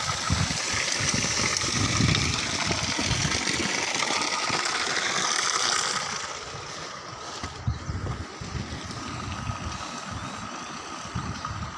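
Water spouting from a small pipe at a spring in the ground, a steady rushing hiss that drops away about six seconds in.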